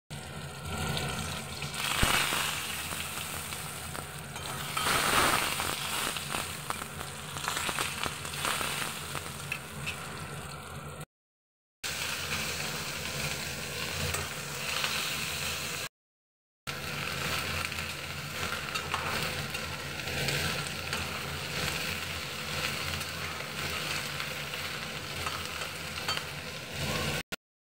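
Hot oil sizzling and crackling in an aluminium kadhai as green chillies and then eggplant pieces fry and are stirred with a spatula. Louder bursts of crackle come about two and five seconds in, and the sound drops out briefly twice.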